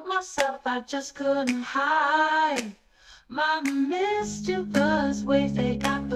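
A woman singing, with a short break about three seconds in; from about four seconds in, steady held accompaniment notes sound under her voice.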